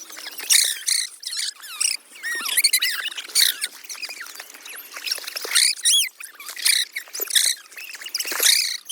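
A dog whining in rapid, high-pitched squeals that slide up and down, over and over, with some splashing in between: the dog is excited and anxious at the water's edge on her first swim.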